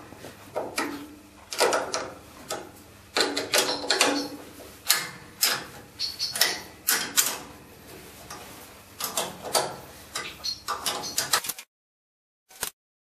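Irregular metallic clicks and clinks of hand tools unscrewing the two nuts that hold the air-filter base on a Honda lawnmower engine. The sound stops abruptly near the end, and one more short click follows.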